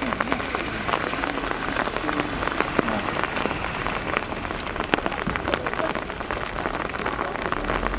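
Steady rain falling, with many small drop hits ticking close by and a few louder ones.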